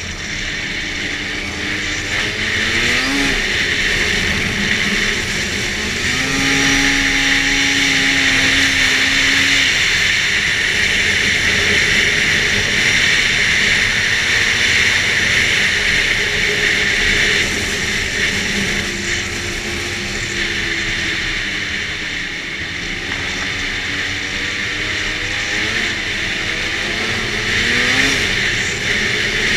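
2011 Arctic Cat F8 snowmobile's two-stroke twin engine running hard on the trail, its pitch climbing as it accelerates about three seconds in, again about six seconds in and near the end, over a steady rush of track and wind noise.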